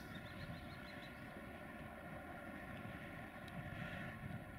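Faint rumble of an approaching EffiLiner 1600 diesel-electric locomotive (rebuilt class 753 'Bizon') with a steady hum over it, growing a little louder near the end.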